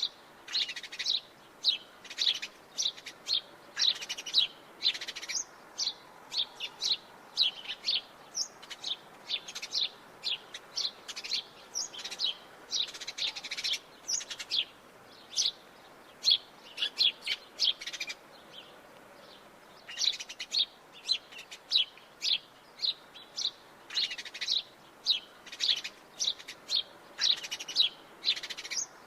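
House sparrow chirping: a fast run of short, repeated chirps, several a second, broken by a pause of about two seconds a little past the middle.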